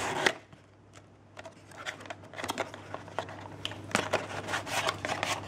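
Cardboard retail CPU box being handled and opened: the brown cardboard inner box scraping as it slides out of the printed paperboard sleeve, with a burst of scraping at the start and scattered light taps and rubs.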